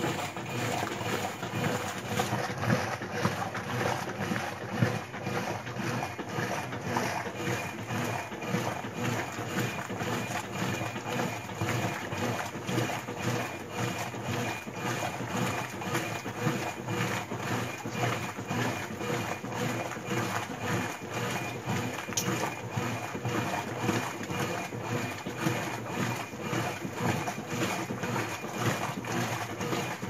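Brastemp top-load washing machine in its wash cycle, the agitator churning clothes in soapy water: a steady motor hum under water sloshing in quick, even strokes.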